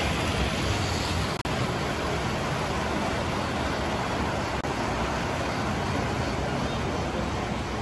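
O gauge model trains running on the layout's track: a steady rolling rumble, with a brief dropout in the sound about one and a half seconds in.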